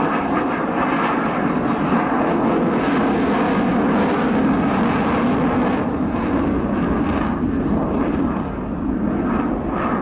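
Dassault Rafale fighter flying its display, its twin jet engines giving a steady loud rush that eases slightly near the end.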